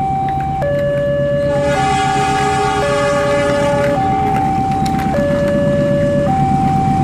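Two-tone electronic warning alarm of a railway level crossing, alternating between a low and a high pitch about once a second, over a steady low rumble.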